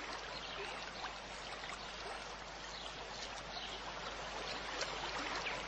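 Water from a two-tier solar birdbath fountain: a steady splashing and trickling as water spouts from the top and falls into the bowls.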